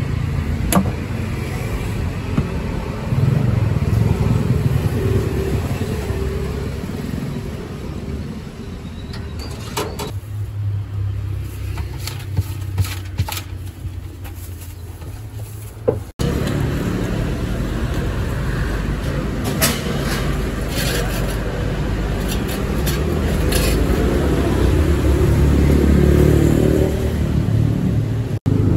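Street ambience: a steady low rumble of passing motor traffic, with scattered short clicks and knocks, breaking off abruptly twice.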